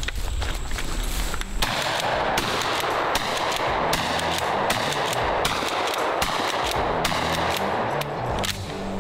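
Tokarev TX3 pump-action shotgun fired repeatedly, sharp shots coming in quick succession over background music from about a second and a half in.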